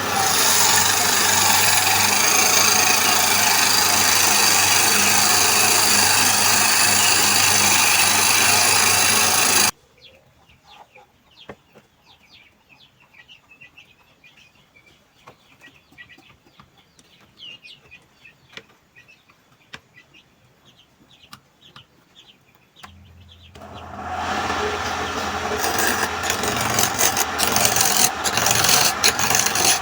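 Wood lathe running while a cutting tool scrapes the spinning wood, with a low motor hum under it. The sound cuts off abruptly about ten seconds in, leaving a quiet stretch with faint bird chirps. The motor hum starts again after about twenty-three seconds, and the scraping of wood resumes soon after and grows louder.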